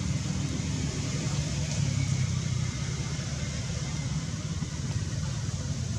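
Steady low rumbling background noise with a fainter hiss above it.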